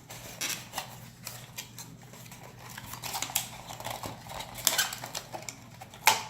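Cardboard and plastic packaging of a CPU retail box being handled: irregular rustles and sharp clicks, the sharpest a little before the end, over a low steady hum.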